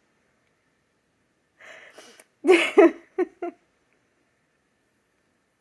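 A woman's brief laugh: a breathy outbreath, then a few short bursts of laughter about two and a half seconds in.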